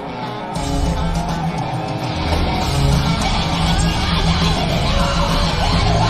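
Live rock band playing with electric guitars; the low end fills out and the band gets louder about two seconds in.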